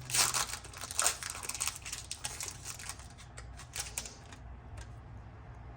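Foil booster-pack wrapper crinkling as it is handled and the cards are drawn out: a quick run of crackles that dies away about four seconds in.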